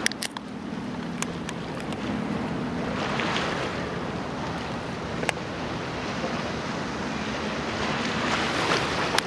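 Ocean surf washing in, swelling twice, with wind buffeting the microphone and a few sharp clicks.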